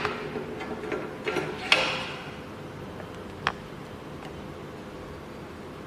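Metal key clamp being handled and fitted into the jaw of an SEC-E9 CNC key cutting machine: a few clicks and clunks in the first two seconds, one sharp click about three and a half seconds in, then only a faint steady hum.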